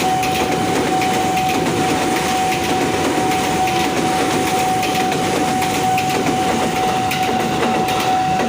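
A train passing close by: a steady, loud rumble with irregular clatter of wheels on the rails. A single steady high tone runs under it.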